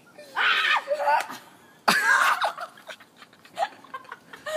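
Kids' hoarse shrieks and laughter around a raw egg smashed on a head, with a sudden smack about two seconds in followed by another cry.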